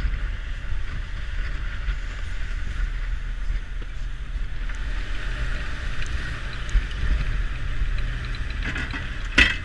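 Ship underway at sea: a steady low machinery rumble under an even rushing hiss of wind and water, with one sharp knock near the end.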